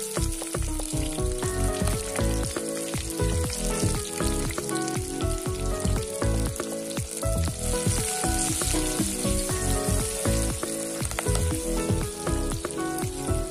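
Sliced small onions sizzling steadily in hot coconut oil in a clay pot, with a spatula stirring them near the end. Instrumental background music with changing notes plays under the sizzle.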